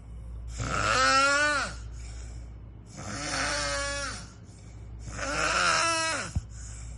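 A pig snoring: three long, whiny breaths about two seconds apart, each one's pitch dropping away at its end.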